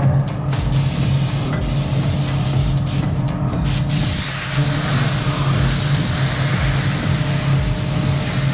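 Paint spray gun hissing as compressed air atomises primer onto car door panels. The spray is broken by short gaps at first and runs continuously from about four seconds in, over a steady low hum.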